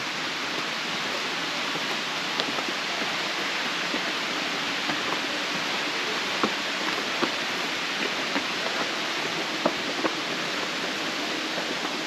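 Steady rushing of a waterfall, with light, scattered footstep taps on stone steps.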